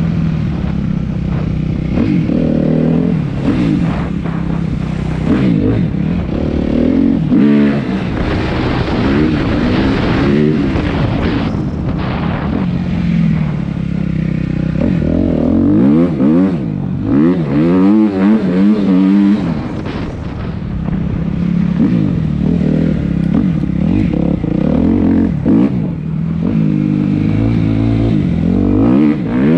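Suzuki RM-Z250 dirt bike's four-stroke single-cylinder engine being ridden, its pitch rising and falling again and again as the throttle is opened and closed. There are quick bursts of revving about a quarter of the way in and again past the middle.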